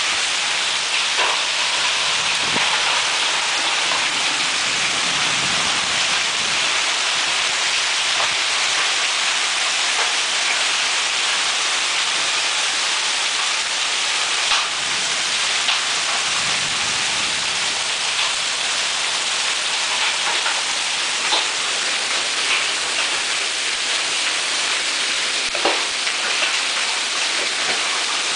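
Hail storm with heavy rain: a dense, steady hiss of falling precipitation, broken by a few sharp cracks of hailstones striking hard surfaces.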